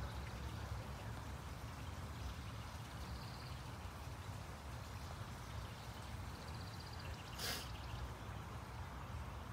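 Outdoor garden ambience: a steady low rumble of wind on the microphone, with a short hiss about seven and a half seconds in and two faint, high, rapid trills, near three seconds and again near six and a half.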